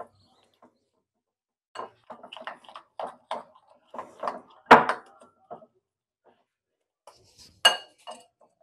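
Metal utensil stirring thick batter in a ceramic bowl: irregular scrapes and taps against the bowl, the loudest a little before the middle, then a few sharper clinks near the end, one ringing briefly.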